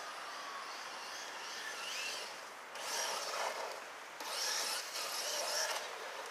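Ansmann Racing Kryptonite brushless RC truggy on a 3S LiPo driving over a dirt path and grass, a rasping hiss of motor, drivetrain and tyres that swells in two short bursts of throttle, about a third of the way in and again past the middle.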